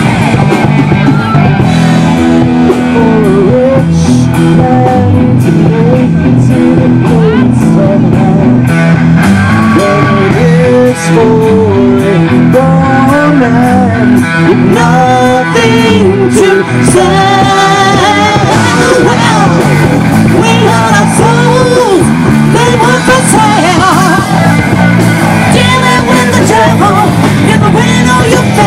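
Live rock band playing loud, with a woman singing lead over electric guitar, keyboard and drums.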